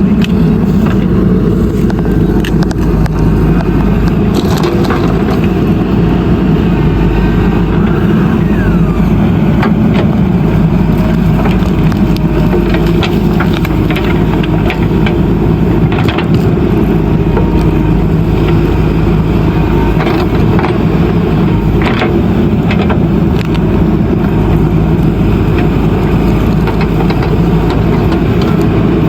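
JCB backhoe loader's diesel engine running steadily under working load, with scattered sharp knocks and cracks as the machine works earth and stones.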